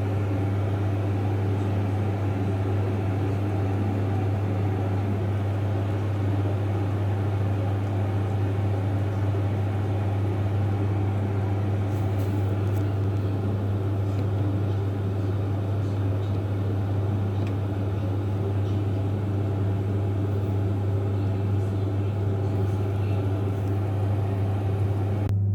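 Saunier Duval Thermoclassic gas boiler running with a steady low hum.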